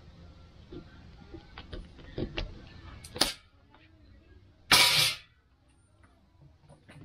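A knife cutting through an ear of sweet corn on a plastic cutting board, with a few light knocks and a sharper one as the blade goes through to the board. About five seconds in, the cut cob pieces are dropped into an aluminium strainer basket with a brief loud clatter.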